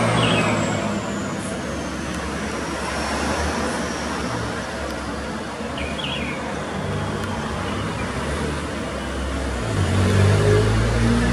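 Steady road traffic noise, with a vehicle's engine rumbling louder about ten seconds in. Two brief, faint high chirps come through, one near the start and one about halfway.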